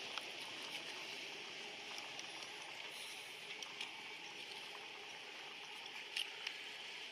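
Steady outdoor background hiss with a few faint ticks and taps, two of them close together about six seconds in.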